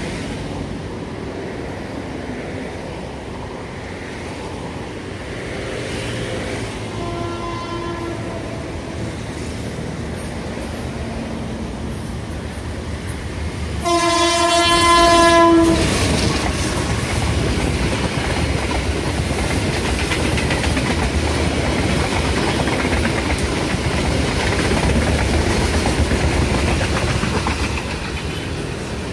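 CC201 diesel-electric locomotive's horn sounding: a faint blast about seven seconds in, then a loud steady blast of several tones lasting about a second and a half, midway through. The locomotive and its train then pass close by, with wheels clacking over the rail joints, until the level drops near the end.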